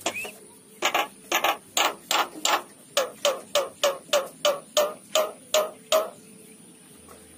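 Javan myna (jalak kerbau) calling a rapid series of sharp, evenly spaced notes, about three a second for some five seconds. Each later note ends in a short falling tone. This is the kind of mimicked sound the bird makes in place of its own song.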